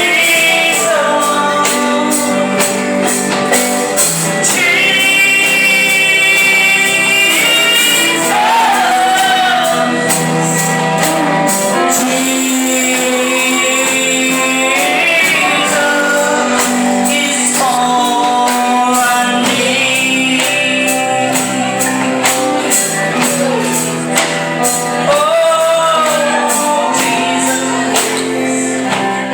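A woman sings a worship song live with band accompaniment: sustained, sliding vocal lines over held chords and a steady beat of high percussion.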